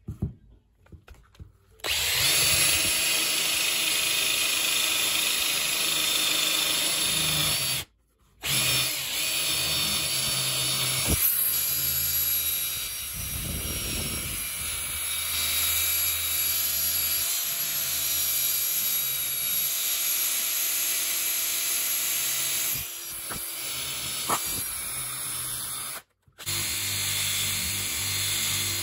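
Handheld drill spinning a cotton buffing wheel against a tail light lens, a steady motor whine with the rub of the wheel on the lens. It starts about two seconds in after a few handling knocks, stops briefly about eight seconds in, runs on, and stops briefly again near the end before starting once more.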